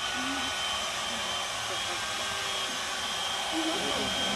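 Chainsaw running steadily at constant speed: a high, even whine over a hiss.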